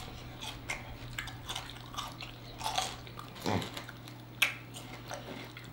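Close-miked eating of sauced chicken wings and ranch-dipped celery: wet chewing and smacking with many small clicks, and a sharper crunch about four and a half seconds in.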